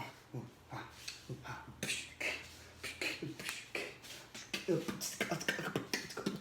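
Quiet, indistinct speech that the recogniser did not transcribe, growing louder near the end.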